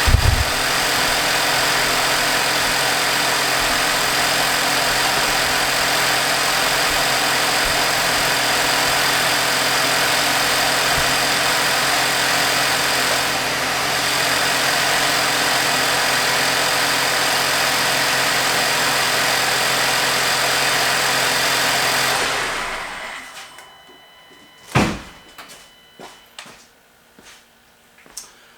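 A 2017 VW Golf Sportwagen 4Motion's engine idling steadily, showing that the crashed car's engine still runs, then shut off about 22 seconds in. A single sharp knock follows a few seconds later.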